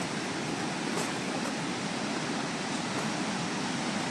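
Floodwater rushing steadily, a super loud, constant wash of churning water.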